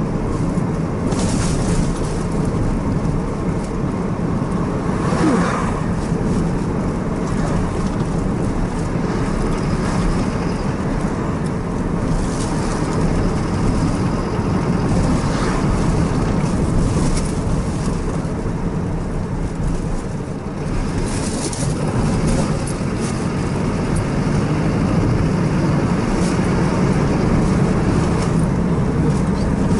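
Car driving along a road heard from inside the cabin: a steady drone of engine and tyre noise, with a few brief swells of noise along the way.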